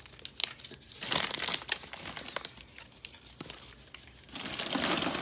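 Small plastic clicks and crinkling rustles of hands working the snap-on helmet off a small vinyl Power Rangers figure, coming in two louder bursts, about a second in and near the end.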